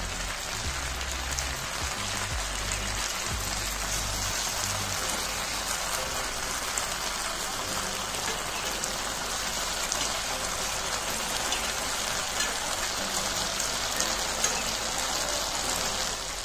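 Chicken pieces frying in oil on a tawa (flat griddle), a steady sizzle with scattered small crackles. The pieces are cooked through and browning.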